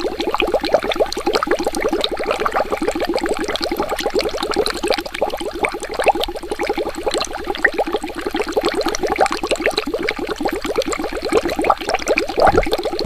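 Water bubbling steadily: a dense stream of small bubbles rising and gurgling, each a quick upward-gliding blip, many per second.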